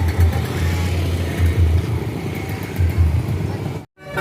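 Tour coach's diesel engine running with an uneven low rumble as the bus pulls out. Near the end the sound cuts off abruptly and a multi-tone 'telolet' bus horn starts.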